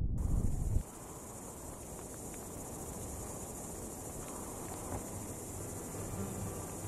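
Steady high-pitched chorus of insects shrilling continuously. Wind rumbles on the microphone for the first second, then cuts off.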